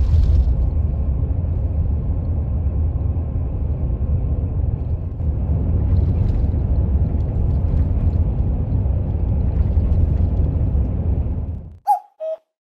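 Steady low rumble of engine and road noise inside a highway bus cabin at night, cutting off abruptly just before the end. It is followed by a short falling two-note hoot.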